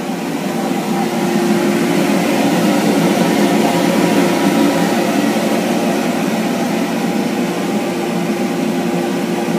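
Steady whirring hum of a fan or blower motor, with one constant tone in it, getting a little louder about a second in.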